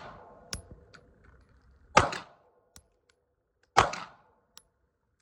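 Two single pistol shots a little under two seconds apart, each followed under a second later by a faint tick of the hit on a steel target. A third tick, from a shot just before, comes about half a second in.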